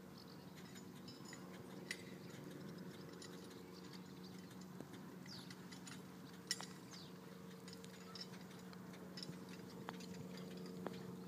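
Faint steady low hum with a few scattered sharp clicks, the loudest about six and a half seconds in.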